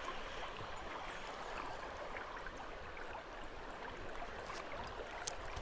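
Creek water running steadily, an even rushing noise with a few faint ticks over it.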